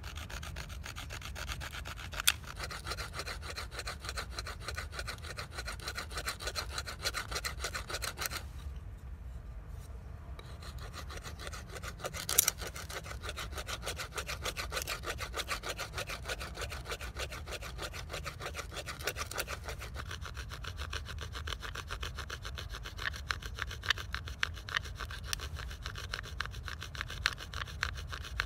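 Fast, repeated scraping of a hand-held stone blade along a strip of bamboo on a rock, stroke after stroke. It pauses briefly about a third of the way in, and there are two sharper knocks, one near the start and one near the middle.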